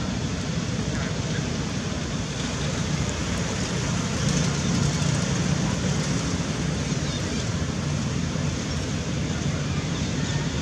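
Steady outdoor background noise with a low rumble, a little louder about four seconds in.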